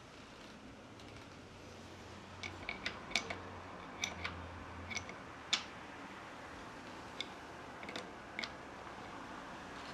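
A dozen or so sharp, irregular light clicks and taps over a faint steady background, the loudest about halfway through.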